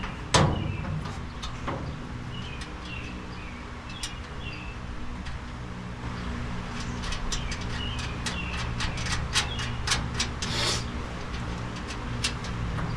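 A sharp knock just after the start, then a run of quick irregular metallic clicks and taps in the second half as a nut and bolt are worked on a car body, over a steady low hum. Small birds chirp in short repeated calls through it.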